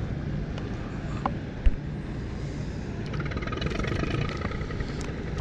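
Steady low motor rumble, with one sharp knock a little under two seconds in.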